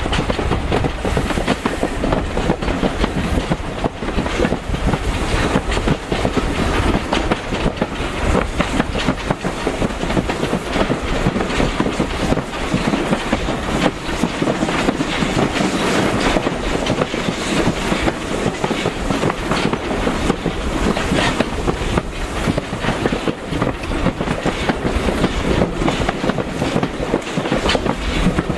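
Train running along jointed track: a steady rumble of the wheels with repeated clicks as they cross the rail joints.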